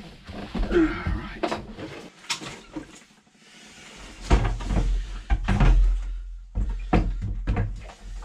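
Long hand-operated plunger suction pump (a "super soaker" bilge pump) being worked down in a bilge: a series of knocks and clunks from the tube and plunger, heaviest with a low rumble in the second half.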